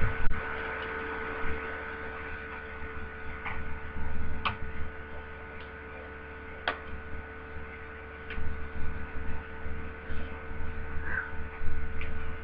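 Plastic vacuum extension tubes being handled and pushed onto the hose: a few sharp clicks and knocks with soft bumps of handling, over a steady hum.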